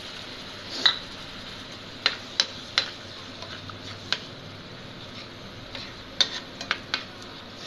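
Steel spatula stirring masala and water in a non-stick frying pan, with sharp taps of the spatula against the pan, one near the start, a cluster a couple of seconds in and another near the end, over a faint steady sizzle.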